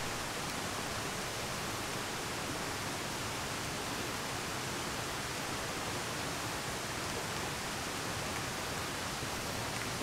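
Steady, even hiss of noise with no distinct events in it.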